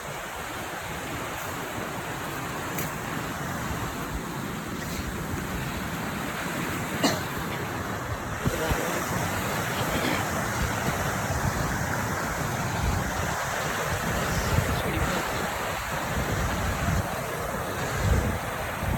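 Rushing river water running over rocks, a steady hiss that grows slowly louder, with gusts of wind buffeting the microphone and a sharp click about seven seconds in.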